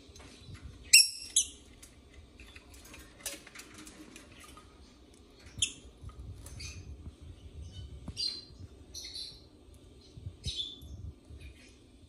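Pet lovebirds and a budgie giving short, shrill chirps and squawks, one every second or two, the loudest about a second in, with small clicks and scuffles between the calls.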